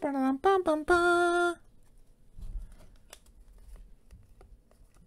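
A man's voice sings a short tune of a few notes, stepping up and down and ending on a held note about a second and a half in. After that, only faint clicks and rustles of trading cards and a foil pack being handled.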